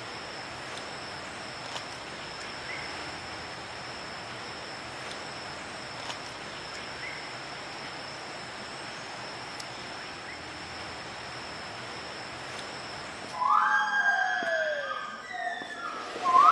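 Forest ambience with a steady high-pitched insect drone. About 13 seconds in, loud whooping calls that swoop up and down in pitch start suddenly and carry on to the end: gibbons singing.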